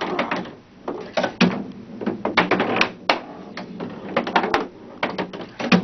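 Skee-ball balls clacking and thudding on a skee-ball table as they are rolled up the lane, hop into the scoring rings and rattle through the ball return. The sharp clatters come in quick clusters, roughly one every half second to a second.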